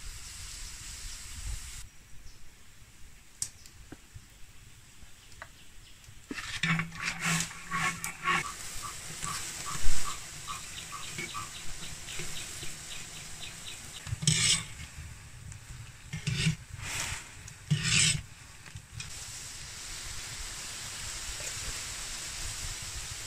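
Sugar syrup bubbling and sizzling in a wok while wooden chopsticks stir and scrape against the pan. About six seconds in come a run of quick taps and then several sharp knocks on the wok, the loudest a clank about ten seconds in, before a steady sizzle takes over.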